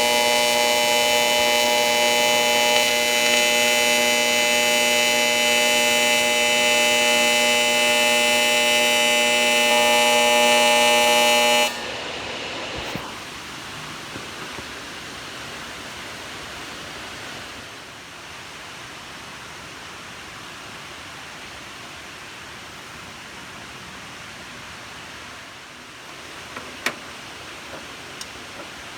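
TIG welding arc from a Hitbox TIG200PACDC welder: a loud, steady, high buzz made of many fixed tones, cutting off suddenly about twelve seconds in as the arc is stopped. A quieter steady hiss remains afterwards, with a sharp click near the end.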